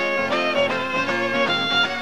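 Violin playing a melody with held, slightly wavering notes over a strummed acoustic guitar, in an instrumental break of a live song with no singing.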